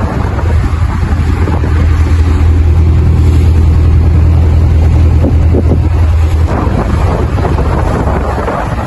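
A fishing boat's engine running steadily underway, a deep drone, with wind on the microphone and water rushing past. About six and a half seconds in the drone drops back and the wind and water hiss grows louder.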